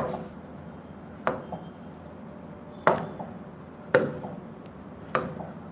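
Stylus tapping on an interactive display screen: five sharp taps, irregularly spaced about a second apart, some with a faint second tick just after.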